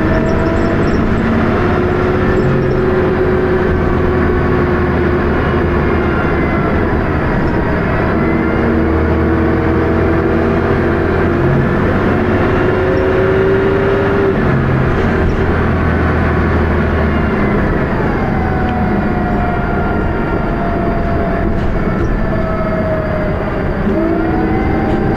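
Dennis Arrow single-deck bus heard from inside, its diesel engine running under load through a ZF automatic gearbox, with a steady rattling thrash. Several whining tones glide up and down as the bus changes speed, and the low engine note shifts about two-thirds of the way through. The uploader says the ZF is slipping and there is a strange high-pitched noise.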